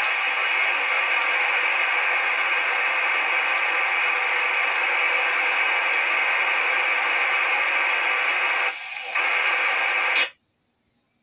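RCI 2950 10-metre FM transceiver giving a loud steady hiss from the repeater channel. The hiss dips for a moment near the end, then cuts off abruptly as the squelch closes and the receiver goes quiet.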